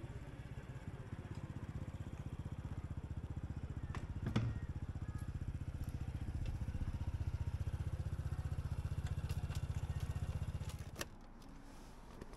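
Honda Super Cub's single-cylinder four-stroke engine idling with an even, rapid beat at low speed, with a single knock about four seconds in. The engine is switched off about eleven seconds in and stops abruptly with a click.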